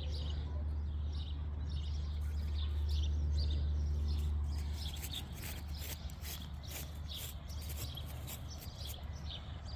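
Small birds chirping repeatedly over a steady low rumble, with a run of short rustling clicks in the middle and later part.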